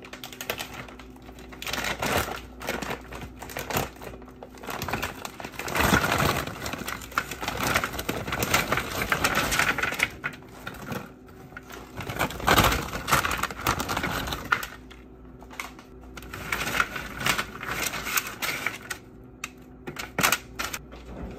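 Frozen seasoned French fries being poured from a plastic bag onto a parchment-lined baking sheet: hard fries clattering and rattling together, with the bag crinkling. The clatter comes in several spells a few seconds long, with quieter gaps between.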